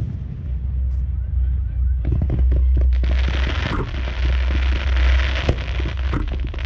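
Fireworks going off: scattered bangs, then from about two seconds in a dense run of rapid crackles. From about three seconds a loud, continuous hissing crackle sets in, over a steady deep rumble.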